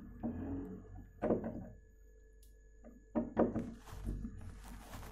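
Dull thunks of hands and a tool against a wooden kitchen-cabinet panel, a few separate knocks with the clearest about a second in and another about three seconds in.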